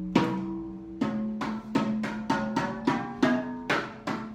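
Rototoms struck in a quick run of about ten strokes. Each stroke rings with a clear pitch, and the pitch changes from stroke to stroke like a short melody.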